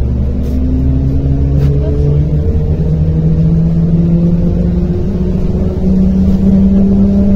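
A MAZ-105 articulated city bus heard from inside while under way. Its diesel engine and driveline run with a low rumble and a whine that climbs steadily in pitch as the bus picks up speed. The whine steps up about two seconds in and again near six seconds, where it gets slightly louder.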